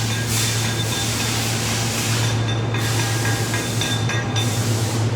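Steady machine-shop noise: a low electrical hum under an even hiss, the hiss dropping away briefly twice.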